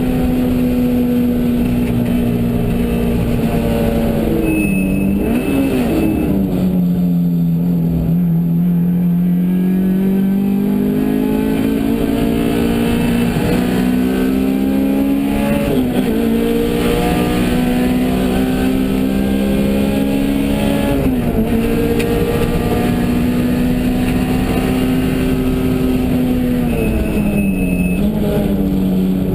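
A car making a steady pitched drone, a weird noise whose pitch drifts slowly up and down and dips briefly about four times.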